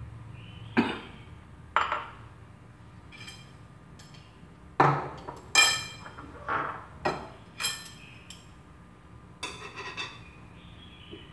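Kitchenware knocking and clinking: a bowl set down and chopsticks striking a glass mixing bowl, about ten sharp strikes spread out, some of them ringing briefly.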